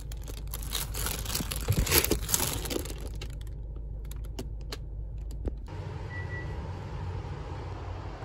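Takeout packaging being handled: irregular clicks and crinkles from a fried-chicken box, its rubber band and plastic sauce cups. About two-thirds of the way through, this cuts off and gives way to a steady outdoor hiss.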